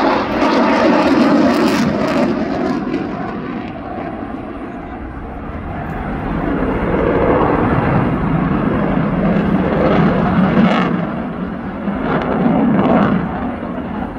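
Boeing F-15 fighter's twin jet engines with afterburners lit, a loud rushing roar that dips about four seconds in and builds again as the jet turns.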